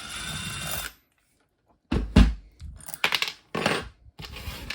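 A cordless power driver's motor whirs for about a second and stops abruptly. It is followed by a string of sharp knocks and clatters as the tool and small metal parts are handled on a workbench.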